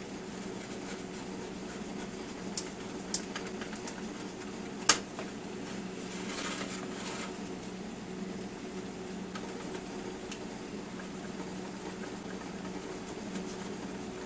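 A knife cutting slowly through a set gelatin pie, with a few sharp clicks of the blade against the metal pie tin, the loudest about five seconds in, and a soft scraping stretch a little later. A steady low electrical hum runs underneath.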